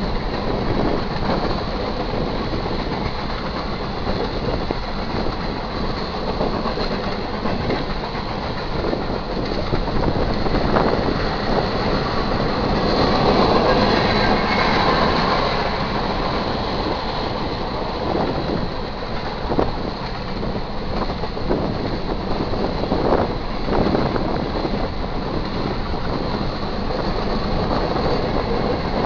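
A freight train of covered hopper cars rolling past. The wheels rumble steadily on the rails, with a few sharp clanks, and the sound grows louder for a few seconds around the middle.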